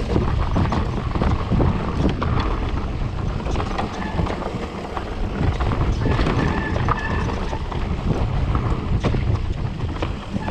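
Mountain bike riding over rough trail ground: wind buffeting the microphone, the tyres rumbling and the bike rattling and knocking over the bumps, with a few short high squeaks around six and seven seconds in.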